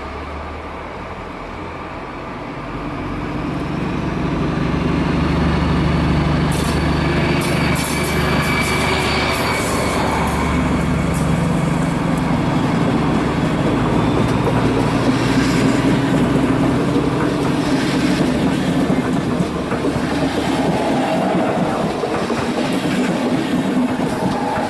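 Model train running on the layout's track: a steady motor hum and wheel rumble, with the wheels clicking over rail joints and points. It grows louder about three seconds in as the train draws near.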